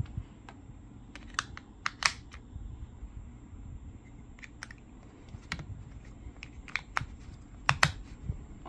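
AA alkaline batteries being pressed one by one into a trail camera's battery tray, clicking sharply against the spring contacts and each other at irregular intervals.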